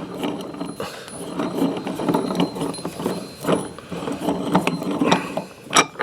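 Steel parts of a manual lawn mower tire changer rattling and clanking irregularly as the wheel is turned and repositioned on it after the bead is broken on one side, with a sharp click near the end.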